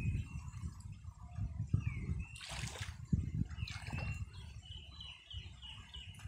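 Cast net being dragged through shallow pond water: soft sloshing with a few sharper splashes, over a steady low rumble. A bird chirps a quick run of short high notes near the end.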